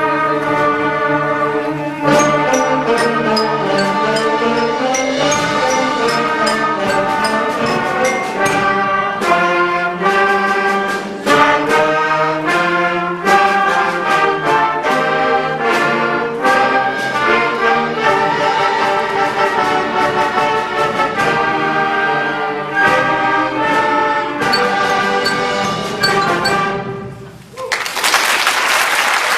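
A school concert band of wind and brass instruments playing, with brass to the fore. The piece ends about 27 seconds in, and audience applause starts right after it.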